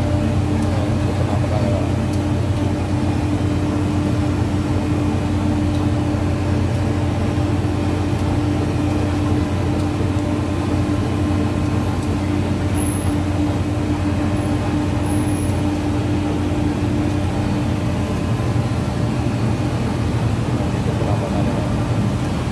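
Steady drone of plastic-pellet hopper dryer machinery running: electric blower motors pushing heated air into the pellet ovens, with a low hum and a higher steady tone that fades out a few seconds before the end.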